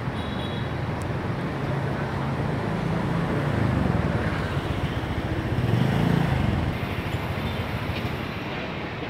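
Low, steady vehicle rumble that swells twice, about four and six seconds in.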